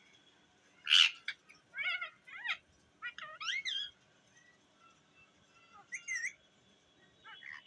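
Pet parrot calling: a harsh squawk about a second in, then a string of short warbling, whistle-like chirps and chatters, each wavering up and down in pitch.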